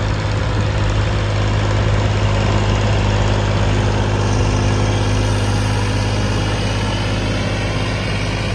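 Massey Ferguson 9500 tractor's diesel engine running steadily under load as it pulls a 20-disc harrow through field stubble, with a strong, even low hum.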